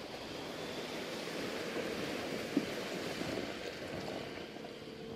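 Jeep Wrangler Rubicon driving past on a wet, muddy field track: a swell of engine and tyre noise with a watery wash, loudest in the middle and easing off toward the end, with one sharp click near the middle.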